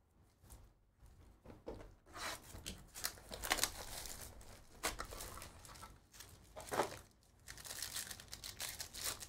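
Plastic wrapping and a foil trading-card pack crinkling and tearing as they are opened by hand, in irregular crackly surges from about two seconds in.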